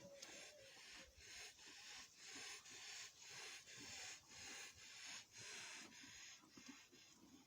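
Faint, rapid, rhythmic breathing of a cow with viral pneumonia: about two noisy breaths a second.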